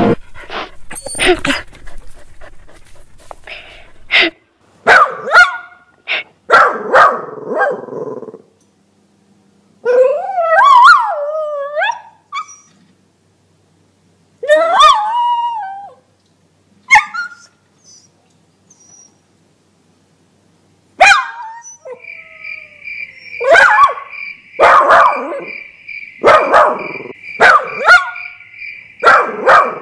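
Puppy barking and yelping, with drawn-out whines that slide up and down in pitch around the middle. Later a steady high-pitched buzz comes in under more barks.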